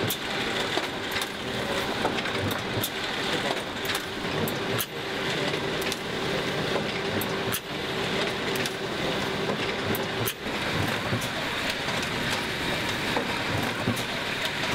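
Printing machinery running: an offset litho press and then a foil-laminating machine, a dense steady mechanical clatter full of rapid ticks, with a steady hum that stops about ten seconds in.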